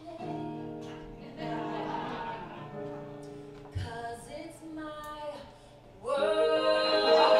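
A woman singing into a microphone over grand piano accompaniment. About six seconds in, voice and piano swell suddenly much louder.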